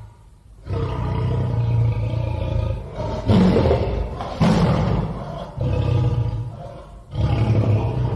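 Tiger growling and roaring: about five long, low calls one after another with short breaks between them, the loudest two just past the middle.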